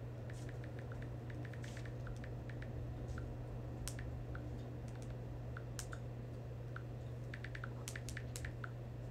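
Light, irregular taps of typing on a touchscreen device, coming in quick runs about a second in and again near the end, over a steady low hum.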